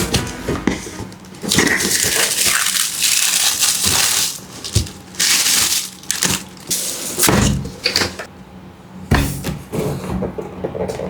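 Plastic and cardboard toy packaging being handled and opened: irregular crinkling and crackling with sharp clicks and short tearing bursts.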